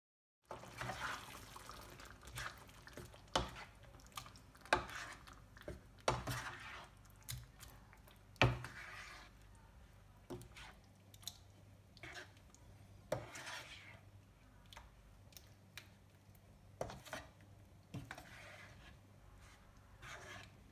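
A black nylon spoon stirring yogurt into a thick beef and tomato masala in a nonstick frying pan: wet swishing and squelching, with sharp knocks of the spoon against the pan every second or two. It starts about half a second in.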